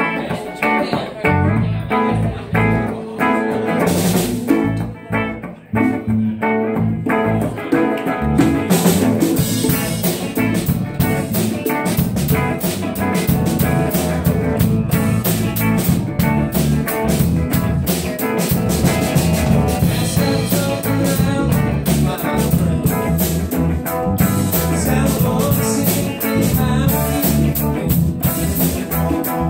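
Live band playing an original blues tune on electric guitars and drum kit. The playing is sparse and broken for the first several seconds, then the full band comes in with steady cymbals about eight seconds in.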